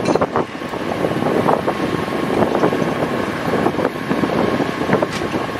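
Steady drone of the fire engines' motors running, mixed with wind noise buffeting the microphone.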